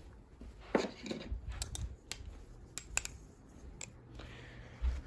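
Balisong butterfly knives being handled: several sharp metallic clicks and light rattles, spread unevenly over a few seconds.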